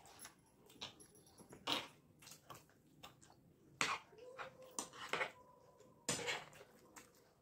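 Metal spoons clicking and scraping on plates, with wet chewing and slurping of yogurt-soaked chaat. A short faint whine comes in about halfway through.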